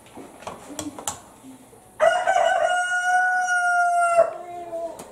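A rooster crowing once: a single long call held on one note for about two seconds, starting about two seconds in and dropping slightly at the end into a short lower tail. Before it there is soft rustling and tapping of leaves being handled.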